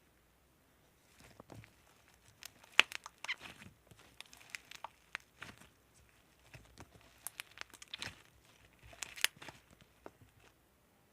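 White snow-topped slime being squeezed and poked by hand, giving irregular crackles, pops and crinkly clicks.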